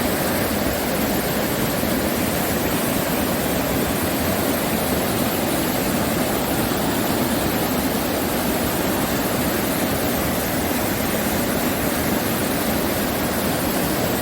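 Mountain valley stream rushing steadily, a continuous even rush of water with no change in level.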